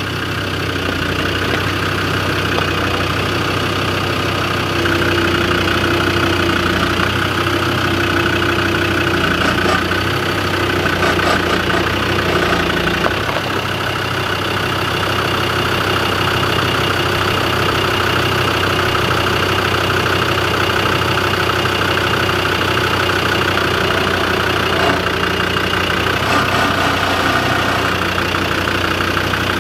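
Land Rover Defender 90 engine running at idle as the truck crawls slowly over a rock step, a steady low drone that gets a little louder about five seconds in.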